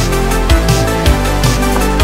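Background music: an electronic track with a heavy kick drum beating about twice a second over a sustained bass.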